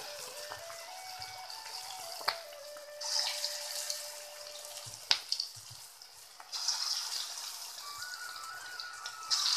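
Kunukku (rice-and-lentil batter fritters) deep-frying in hot oil in a steel kadai: a steady crackling sizzle that swells louder about three and six and a half seconds in. Two sharp clicks, about two and five seconds in.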